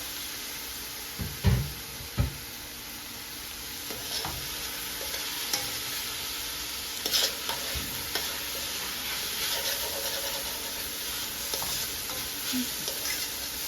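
Chopped garlic and green pepper sizzling in hot oil in a pan with onion and carrots, stirred with a utensil. Two loud knocks of the utensil on the pan about a second and a half in, then lighter scrapes and clinks.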